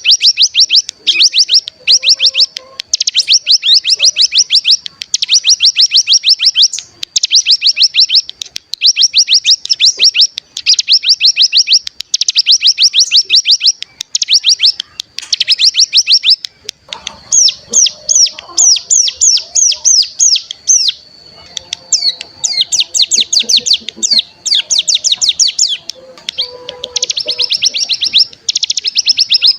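Ciblek gunung (a prinia) singing its rapid rattling trill, 'ngebren': bursts of about a second of fast, high, down-sweeping notes, repeated one after another with short gaps.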